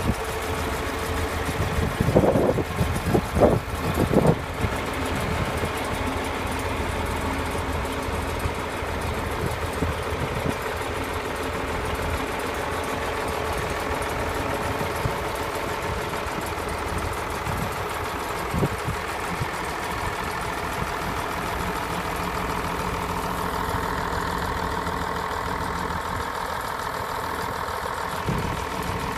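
John Deere 544 wheel loader's diesel engine idling steadily, with a few louder bursts about two to four seconds in.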